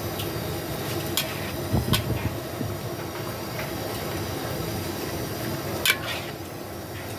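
Steady sizzling of noodles frying on a hot pan, with a few sharp metallic clicks about a second in, around two seconds in and near six seconds in.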